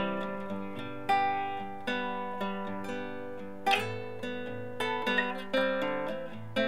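Acoustic guitar being played, with plucked notes and chords struck about every half second to a second, each ringing out and fading.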